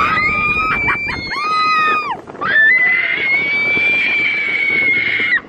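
Roller-coaster riders screaming: a few short high screams that fall away at their ends, then one long high scream held for nearly three seconds that cuts off near the end. The rumble of the coaster train runs under the first screams and stops about a second in.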